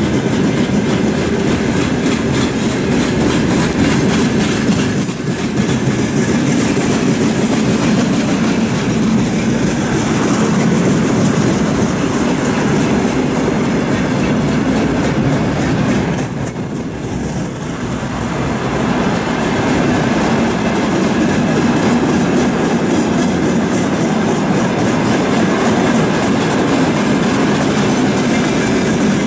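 Freight train wagons (gondolas, boxcars and tank cars) rolling past, their wheels on the rails making a steady rumble. It is briefly quieter about 17 seconds in.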